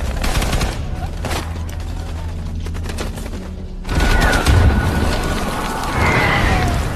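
Battle-scene gunfire: rapid rifle and machine-gun shots for about four seconds, then a louder, denser stretch with a deep boom, and an explosion near the end.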